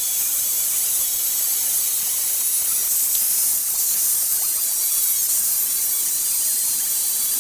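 Angle grinder running against a rusty steel truck leaf spring: a steady high hiss of the abrasive disc on steel with a faint wavering whine underneath.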